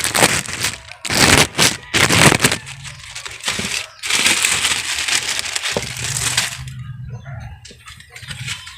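Plastic wrapping crinkling and crackling in several short bursts, then a longer rustle, as a new car air filter is unwrapped and handled.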